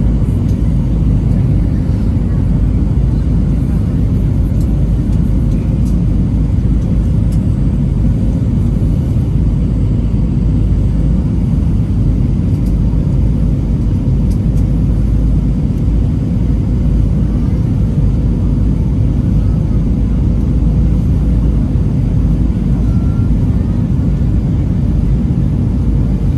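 Steady low rumble of an Airbus A320-200 heard inside the passenger cabin in flight, from the engines and the airflow over the fuselage.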